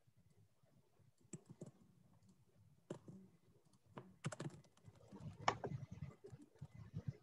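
Typing on a computer keyboard: faint, uneven keystroke clicks that begin about a second in and come thicker and faster in the second half.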